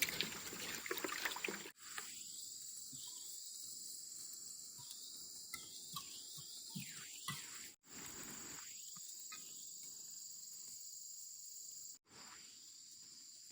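Forest insects chirring in a steady high drone. In the first second or two there are short knocks and rustling, and the sound cuts out abruptly three times.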